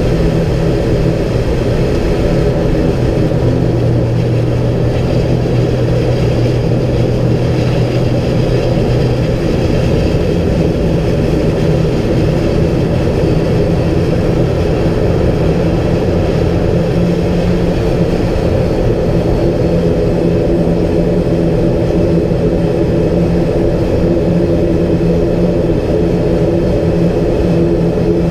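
An ATR 72-500's twin turboprop engines and propellers running at low power, heard from inside the cockpit as the airliner taxis: a steady drone made of several low tones. One of the low tones drops out about a third of the way in.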